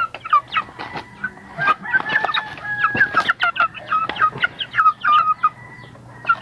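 A flock of Rhode Island Red and native chickens clucking busily while feeding: short, quick calls overlapping several times a second, with a few sharp knocks among them.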